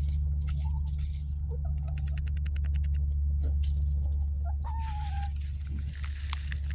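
Domestic hens clucking softly, with one longer, slightly falling call about five seconds in, over a steady low hum. A quick run of rapid tapping comes around two seconds in.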